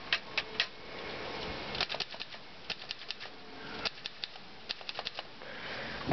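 Underwood Wagner Model 5 typewriter's mechanism clicking as it is worked by hand: sharp mechanical clicks in small groups of two to four, with short pauses between.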